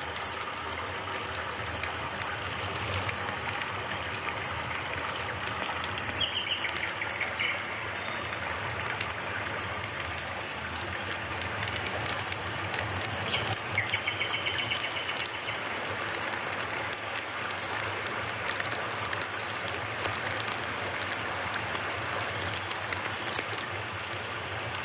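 A steady rushing noise, with short chirping bird calls twice, about six seconds in and again about thirteen seconds in.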